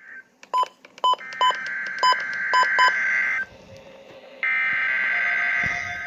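NOAA Weather Radio SAME header data bursts from a weather radio's speaker: two raspy electronic buzzing bursts of about two seconds each, a second apart, marking the start of a Required Weekly Test. Several short, sharp beeps sound over the first three seconds.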